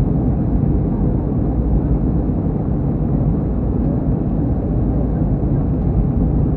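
Steady deep rumble inside a jet airliner's cabin in flight: engine and airflow noise heard through the fuselage.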